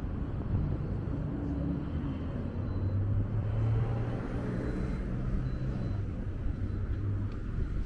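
Street traffic: a motor vehicle's engine running close by, a low hum that builds from about two and a half seconds in and fades near the end, over a constant low rumble.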